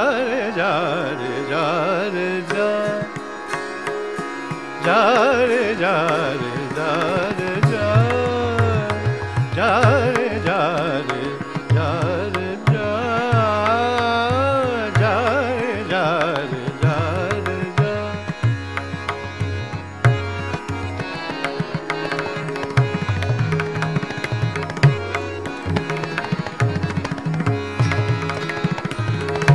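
Hindustani classical vocal in raag Kafi at slow vilambit tempo: a male voice sings wordless, wavering, heavily ornamented phrases over a steady drone, with tabla strokes beneath. The voice largely drops out about eighteen seconds in, leaving the tabla and drone.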